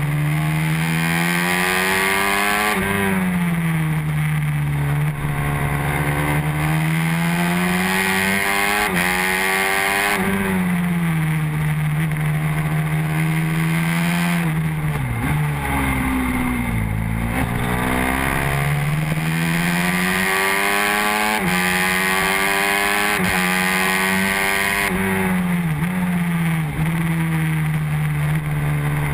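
NSF150R racing motorcycle's engine heard onboard at racing speed, revs held high and then falling and climbing again several times through the lap, with a deep drop and choppy pitch steps about halfway through before it winds back up. Steady wind rush underneath.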